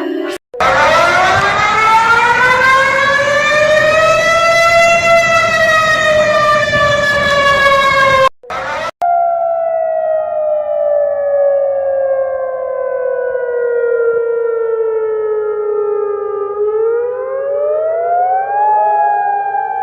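Two civil defence warning sirens one after the other, those of Malaysia and then Jordan. The first is harsh and noisy: it winds up in pitch, then slowly sinks, and cuts off about eight seconds in. After a short break the second, a cleaner wail, glides slowly down, climbs quickly near the end, then starts falling again.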